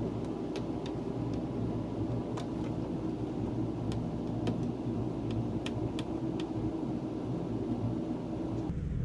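An engine or motor running steadily, with scattered light clicks and ticks over it.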